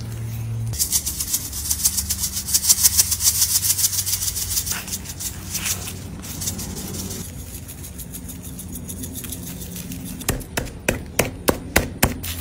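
Salt and then pepper going onto a raw beef roast. A fast, dense, crisp rattle of seasoning starts about a second in and lasts a few seconds. Near the end comes a run of sharp clicks, all over a steady low hum.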